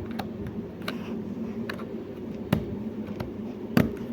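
Small plastic clicks and taps from a keyboard case being handled and pried open for its battery, with two sharper clicks about two and a half seconds in and near the end, over a steady low hum.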